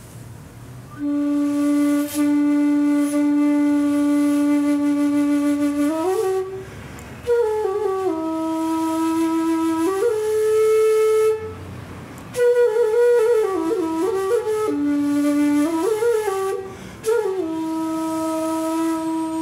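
Shakuhachi, an end-blown bamboo flute, played slowly in four phrases with short pauses for breath between them. The phrases are built from long held low notes, with slides up between notes and wavering bends in the third phrase.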